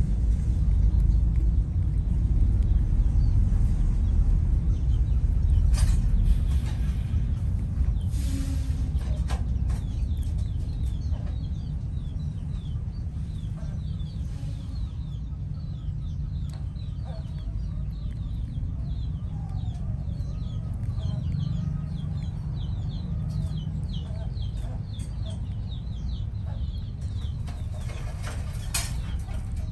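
A low rumble that eases after about six seconds, then short bird chirps repeating rapidly in the background, with some wavering calls among them.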